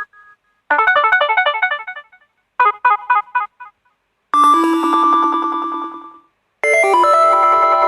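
HTC phone notification tones played one after another, four in all with short gaps between: a quick run of chiming electronic notes, a short burst of rapid notes, then two longer held electronic chords, the first with a fast pulsing flutter.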